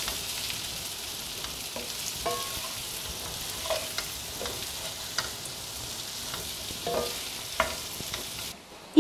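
Spiced potato cubes sizzling in oil and ghee in a stainless steel frying pan while a wooden spatula stirs them, with scattered scrapes and clicks over a steady hiss. The sizzling cuts off suddenly just before the end.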